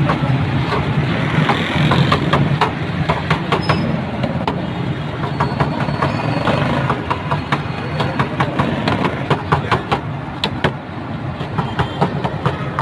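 Busy roadside street noise: a steady low engine hum under a constant noisy wash, with many short clicks and clatters throughout.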